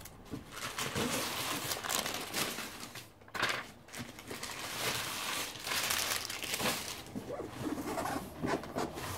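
Cardboard and packing material crinkling and rustling as hands dig through a large cardboard shipping box, with a brief lull about three seconds in.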